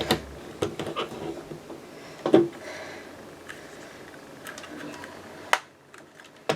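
Plastic Lego bricks being handled and pressed together: scattered light clicks and knocks, the loudest a little over two seconds in and another sharp one near the end.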